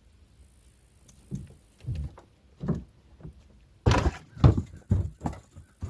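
A string of irregular thumps and knocks in a fishing boat, about nine in all, the loudest about four seconds in.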